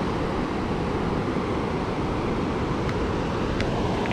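Steady rushing of a high, fast-flowing river.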